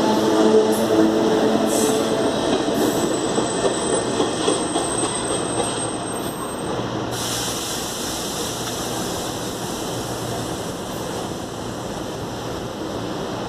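CPTM electric multiple-unit train pulling away, its traction motors running loud with several steady tones that fade out about three seconds in. It leaves the wheel-and-rail rumble, which eases off slowly as the train recedes. A thin high whine sounds for a few seconds in the middle.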